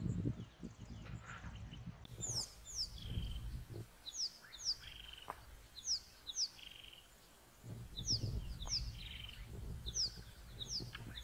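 Wild birds chirping: quick, sharply falling high notes, often in pairs, repeated every second or two, with a few buzzier notes between. A low rumble rises and falls underneath.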